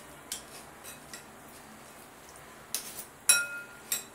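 Metal spoons clinking and scraping against a glass mixing bowl as chopped-vegetable sandwich filling is stirred. Scattered clinks, with the loudest about three seconds in ringing briefly.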